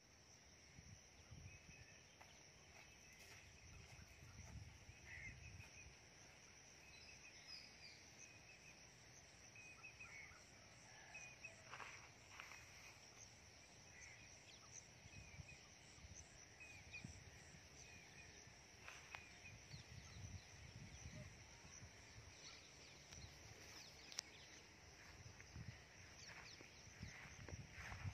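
Faint outdoor ambience: scattered bird chirps over a steady high insect drone, with uneven low rumbles of wind or handling on the microphone.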